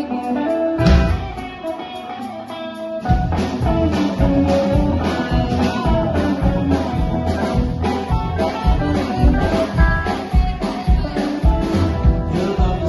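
Instrumental band music: the song's opening, with a steady beat coming in about three seconds in.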